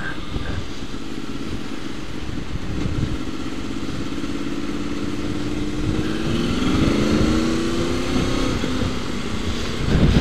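Motorcycle engine under way, its pitch rising steadily from about six seconds in as the bike accelerates, then easing off, over wind rumbling on the microphone.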